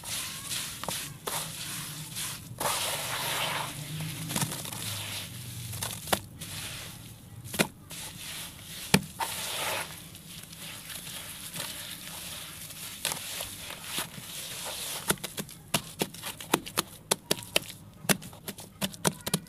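Hands squeezing and kneading damp sand-cement mix in a plastic tub: wet crunching and crackling with scattered sharp clicks, then a quick run of snapping clicks over the last few seconds.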